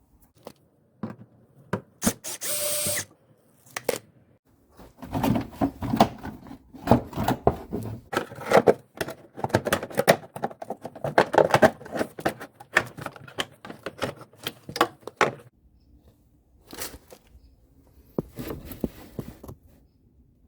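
A power drill/driver whirs for about a second, then about ten seconds of dense clicking, knocking and rattling of hand-tool work on the car follow.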